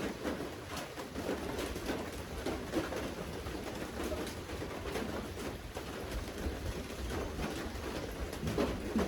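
Steady rain with many individual drops ticking and dripping close by.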